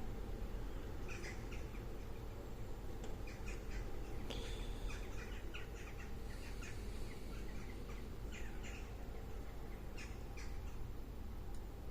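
Faint, irregular clicks and scrapes of a 3D-printed disc detainer pick turning the discs inside an Axa Clinch padlock, with a brief squeak about four seconds in, over a steady low hum.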